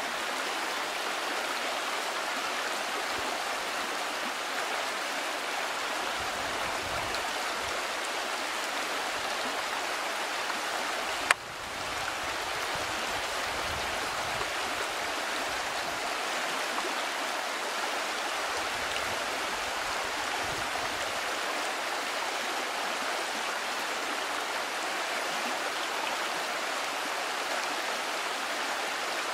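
Steady rushing of a river's flowing water. A single sharp click about eleven seconds in, after which the sound briefly drops and comes back.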